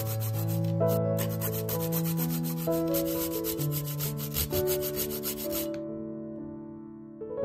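Whole nutmeg grated on a fine rasp grater in rapid scraping strokes, a dry rasping that stops abruptly about six seconds in. Background music with held notes plays throughout.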